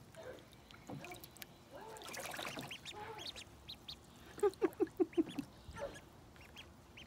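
White Crested ducklings peeping in short high chirps while they dabble in shallow water. About four and a half seconds in comes a quick run of about six louder, lower calls.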